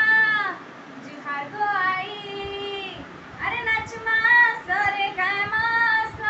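A woman singing solo without accompaniment, in phrases with short breaks between them, holding some notes that fall in pitch at their ends.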